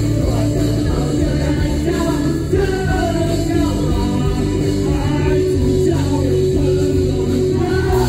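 Live rock band playing: electric guitars, bass guitar and drum kit under vocals sung in Mandarin.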